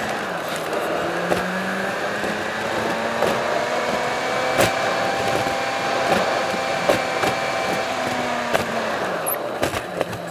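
A VAZ-21093's carburetted four-cylinder engine running under way, heard from inside the cabin. Its note rises a little and then drops about nine seconds in, with occasional sharp knocks from the car over the road. It is running on the last fuel from a nearly empty one-litre bottle, which the driver thinks is now only what is left in the carburettor.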